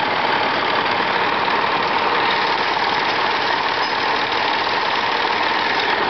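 Massey Ferguson 135 tractor engine running steadily as the tractor drives slowly past close by.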